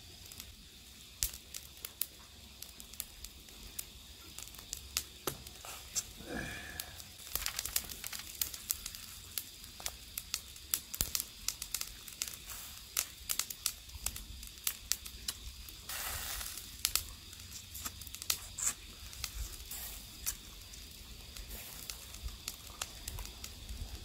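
Gizzard shad crackling and sizzling on a wire grill over charcoal, with close-up chewing and crunching of the grilled fish eaten bones and all: many sharp, irregular clicks over a faint hiss. A short hum from the eater about six seconds in.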